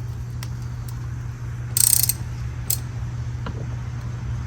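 Ratchet with a T50 Torx bit breaking loose a Jeep Wrangler's door hinge bolts: a few scattered metallic clicks and a louder, harsh burst about two seconds in, over a steady low hum.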